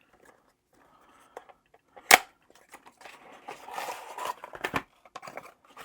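Small cardboard product box being opened and its contents handled: a sharp snap about two seconds in, then rustling and scraping of packaging with scattered small clicks.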